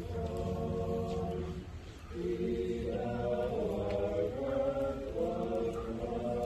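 A group of voices singing together, a slow song in long held notes, with a brief break between phrases about two seconds in.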